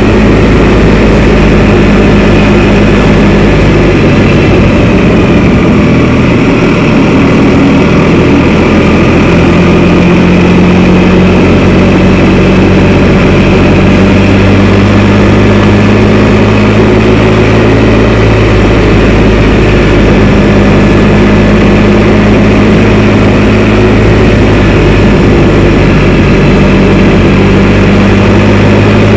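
Can-Am Spyder three-wheeled motorcycle's engine running steadily while riding, its pitch shifting a little a few seconds in and again about two-thirds of the way through.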